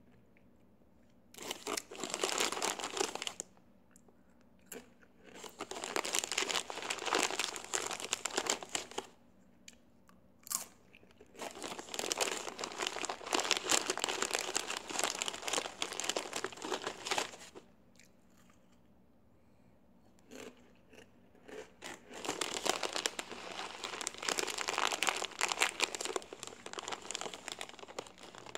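Doritos tortilla chips crunching as they are chewed close up, in four spells of several seconds each with quiet pauses between.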